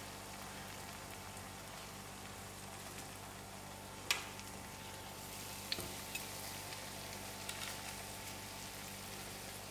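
Layered banana puri dough frying in oil over low heat: a steady, quiet sizzle, with a sharp click about four seconds in and a few fainter clicks later.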